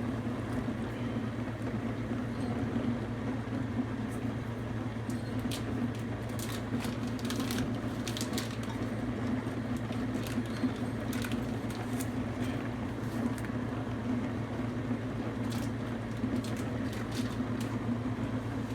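Dishwasher running with a steady hum, with scattered light clicks and rustles of kitchen handling over it.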